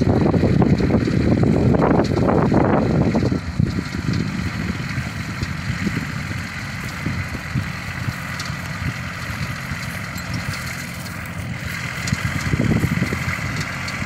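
Compact diesel tractor's engine running steadily as it pulls a rotary cutter through tall weeds, with a thin steady high whine over it in the second half. Wind buffets the microphone with a heavy rumble for the first few seconds.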